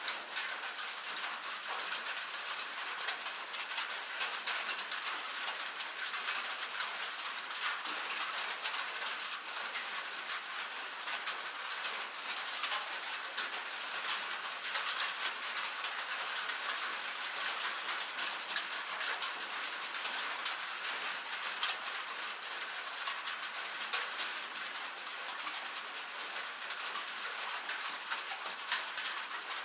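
Steady rain on a metal roof: many drops ticking and pattering at once in a dense, even hiss, with no low rumble.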